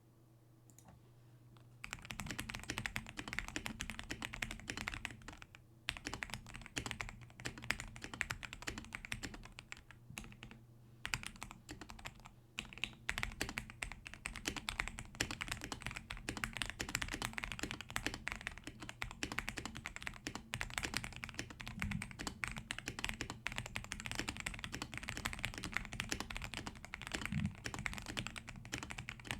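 Typing on a GamaKay K87 mechanical keyboard with lubed Gateron Yellow switches and lubed plate-mounted stabilisers, modded with cloth and masking tape under the PCB, on a desk mat. Fast, continuous keystrokes start about two seconds in, with a few short pauses.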